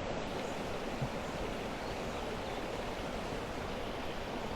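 Trout stream running: a steady rush of flowing water.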